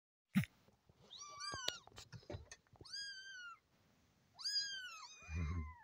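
Several 25-day-old kittens mewing: three or four high cries that rise and then fall, some overlapping. A sharp knock comes about half a second in, and a low thump near the end.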